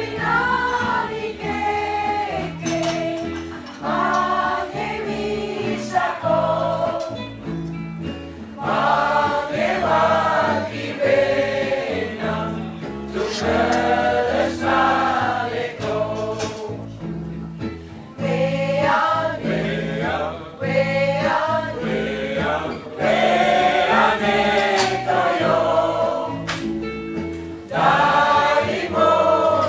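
A choir singing a song in phrases of a few seconds each, with short breaks between them.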